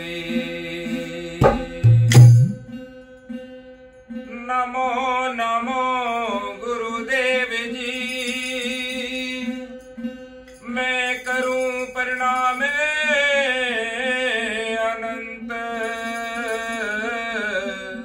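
A man sings a Hindi devotional bhajan in long, drawn-out melismatic phrases over the steady plucked drone of a single-string ektara. There are two sharp knocks about one and a half and two seconds in, the second with a heavy thump.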